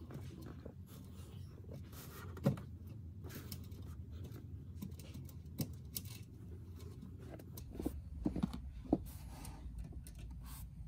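Light metallic clicks and taps from nuts and washers being hand-turned off the terminal posts of a new 48-volt golf cart solenoid. There is one sharper click about two and a half seconds in and a few more near the end, over a low steady hum.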